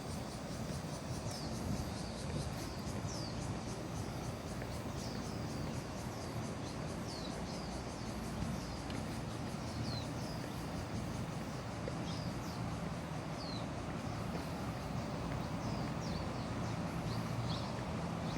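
Birds calling with short, high chirps that drop in pitch, about one a second, over a steady outdoor background hum.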